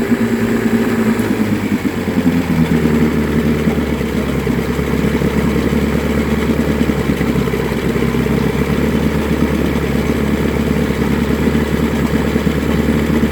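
Mariner outboard motor running at idle, most likely out of gear. Its note shifts about two seconds in, then runs steadily.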